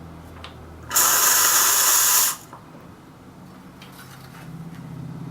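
Steam wand of a Lelit PL62T heat-exchanger espresso machine opened for a short purge: a loud, even hiss of steam starting about a second in and cut off after about a second and a half.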